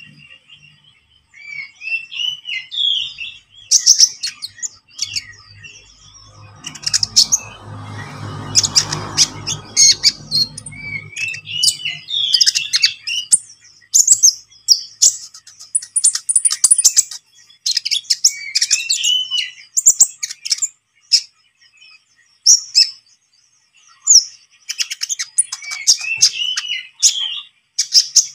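Olive-backed sunbird (kolibri ninja) singing a fast, chattering song in repeated bursts: rapid high chirps and trills mixed with short looping whistled notes, with brief pauses between phrases. A faint low rumble sits underneath from about six to eleven seconds in.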